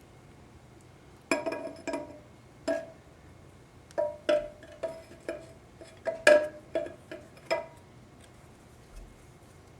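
Metal 4L60E transmission parts clinking and ringing: about a dozen light knocks between one and eight seconds in, as the clutch housing is worked around to line its teeth up with the ones below.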